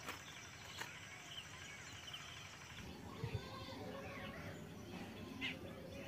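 Faint outdoor ambience with scattered short bird chirps and a few light clicks.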